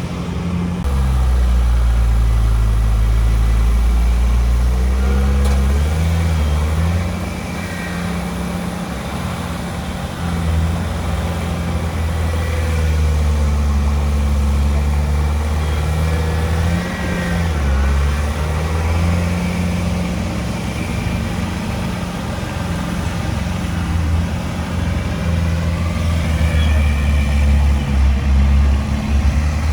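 Heavy diesel engine working under changing load, its speed stepping up and down over and over, louder for the first few seconds and again toward the end.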